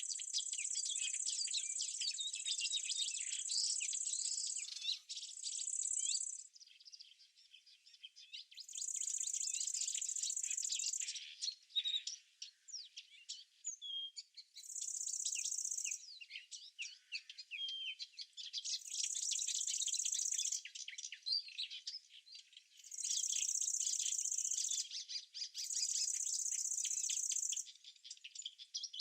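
Small birds chirping and twittering in quick busy notes. A high, steady insect buzz starts and stops in bouts of one to three seconds alongside them.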